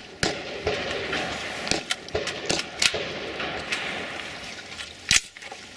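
Rifle shots fired at steel targets, several at uneven spacing, the loudest one about five seconds in.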